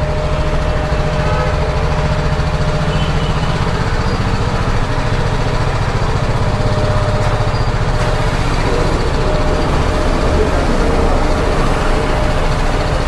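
Motorcycle engine running steadily, a constant low hum with a faint steady higher tone over it.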